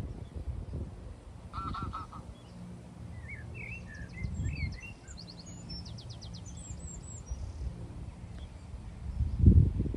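Wind rumbling on the microphone, with a quick run of about four honking waterfowl calls about two seconds in, then small songbirds chirping and twittering for several seconds. A stronger gust of wind near the end.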